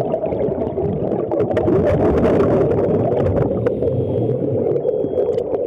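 Underwater sound picked up through a camera's waterproof housing: a steady, muffled rumble and rush with the bubbling of scuba divers' exhaled air, and scattered faint clicks.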